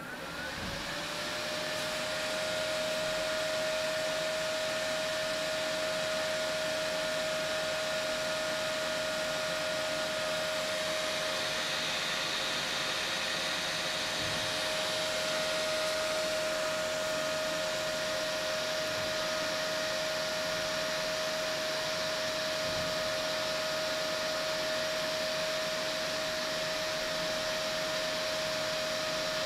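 Cooling fan on a Peltier cooler's heat-pipe heatsink spinning up and then running steadily: an airy whoosh with a steady whine that rises slightly in pitch over the first second, then holds.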